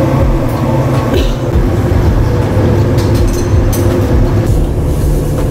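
Car ferry's engines running: a steady low rumble heard inside the passenger cabin, with a few light clicks about three seconds in.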